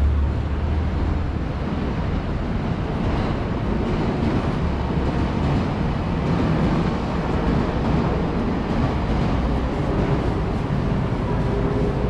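Train running past: a steady low rumble throughout.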